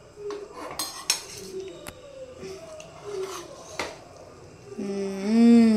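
Steel ladle clinking and scraping against a metal pot as cooked chicken biryani is stirred and scooped, with a few sharp clinks. Near the end a person's voice, held for about a second, is the loudest sound.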